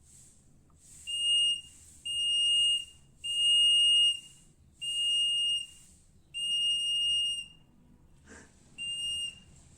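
Electronic buzzer of a homemade transistor water-level alarm going off as water bridges its sensor wires. It gives six beeps of one steady high tone, uneven in length and spacing, as the circuit is made and broken.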